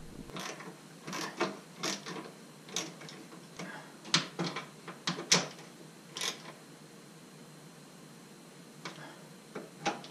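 Irregular sharp clicks and knocks from exhaust parts being handled and fitted, with a lull and then a few more knocks near the end.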